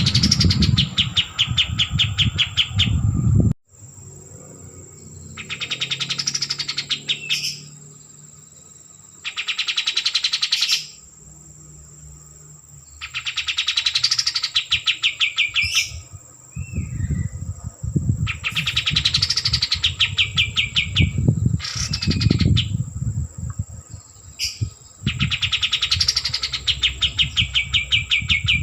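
A caged kapas tembak songbird singing in loud bursts of rapid, rattling trills, about six phrases each one to three seconds long and a few seconds apart. A thin steady high whine runs underneath, and low rumbling noise comes and goes.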